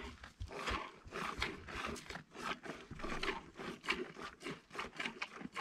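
Goat being milked by hand: short, noisy squirts of milk hitting the pail, several a second in an even rhythm.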